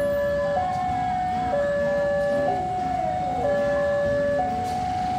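Electronic two-tone warning alarm of a railway level crossing, switching between a lower and a higher tone about once a second, with a brief falling tone about three seconds in.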